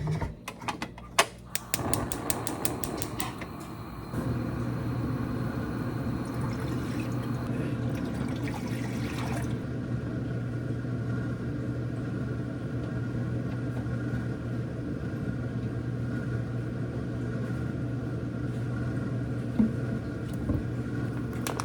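A quick run of clicks in the first few seconds, then a steady mechanical hum with a low droning tone that runs on unchanged.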